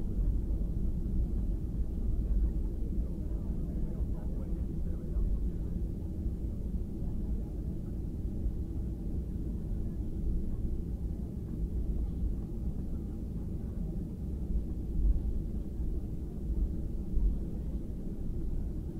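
Steady low rumble inside the cabin of a Boeing 737-800 taxiing, its CFM56 engines at idle and its wheels rolling over the taxiway.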